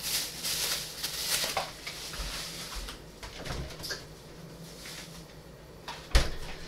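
Kitchen handling sounds: light rustling and clatter of things being moved about, with a sharp knock about six seconds in.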